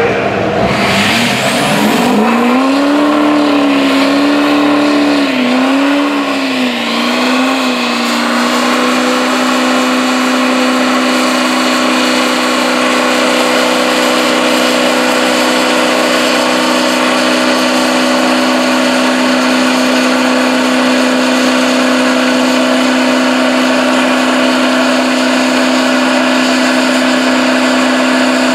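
Chevrolet Silverado diesel pickup doing a burnout, rear tyres spinning. The engine revs up and wavers for several seconds, then is held at a steady high rpm.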